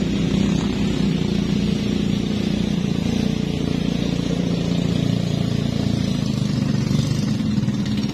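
A motor vehicle's engine running at a steady speed.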